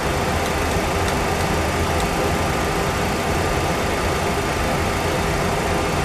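Steady cockpit drone of a Boeing 737 Classic full flight simulator, the simulated engine and airflow noise of a jet in flight. A few faint clicks come in the first two seconds as the NAV radio tuning knob is turned.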